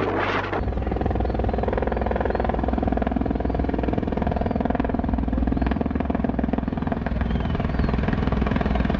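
An engine running steadily, starting about half a second in and holding an even pitch.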